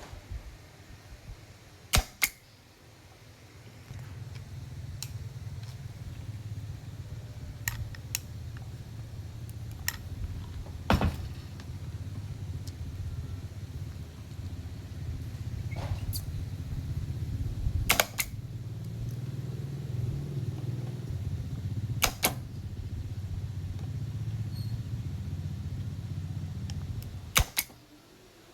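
Low hum from an amplifier with a humming fault, coming up about four seconds in and stopping about a second before the end. Several sharp clicks sound through it.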